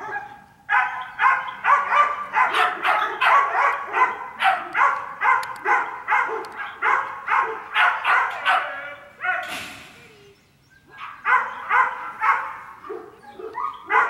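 Dog barking repeatedly in quick, even succession, about three barks a second, breaking off for about a second near the middle before barking again.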